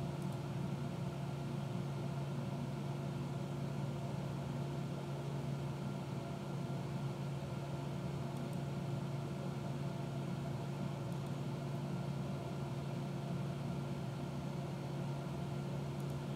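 A steady low machine hum with a few fainter held tones above it, unchanging.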